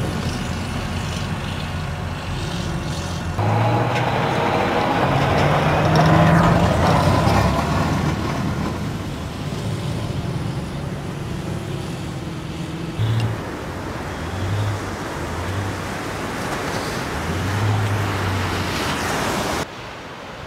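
Tracked amphibious assault vehicles running on a beach and into the surf: engine and track noise mixed with splashing water. The sound shifts abruptly a few times as shots change.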